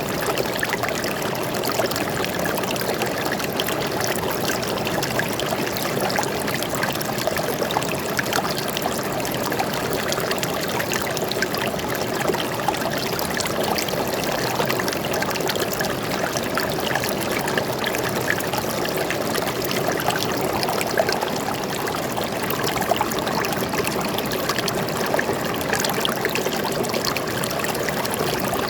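Stream water flowing and trickling steadily over rocks, an even splashing rush with no let-up.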